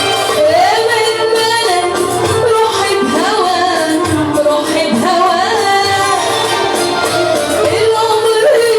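A woman singing an Arabic song in a wavering, ornamented melody over instrumental accompaniment.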